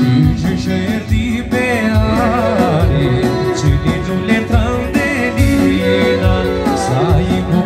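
Live Albanian folk dance music: a clarinet plays a wavering, heavily ornamented melody over band accompaniment with a steady low beat.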